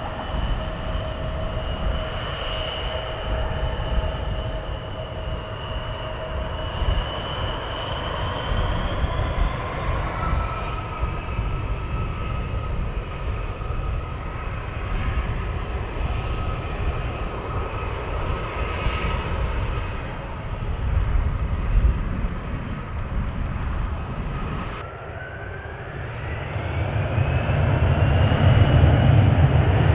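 Jet airliner engines whining steadily over low wind rumble on the microphone. Near the end the whine rises in pitch and the engine roar grows louder as the engines spool up.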